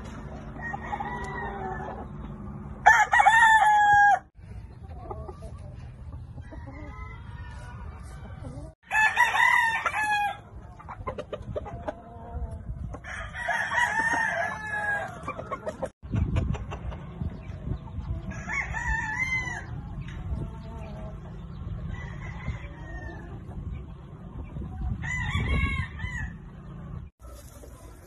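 Gamefowl roosters crowing, about five loud crows spread through the stretch, with quieter chicken calls in between.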